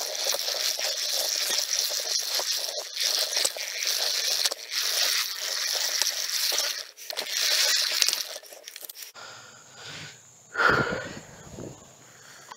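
Tall grass and weeds rustling and crackling as someone wades through an overgrown food plot. About nine seconds in it drops away abruptly to a quieter background, broken by one short voice-like sound.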